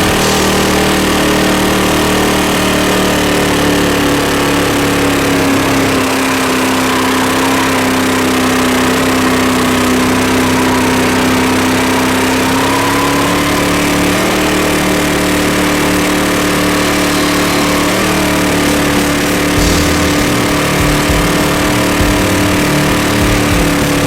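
Supercharged VK Commodore engine held at high revs through a burnout: a steady, high-pitched engine note with a continuous hiss over it. The pitch sags a little about six seconds in and comes back up about thirteen seconds in.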